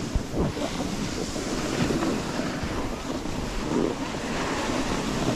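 Steady rushing hiss of wind on the microphone mixed with snowboards sliding and scraping over snow while riding downhill.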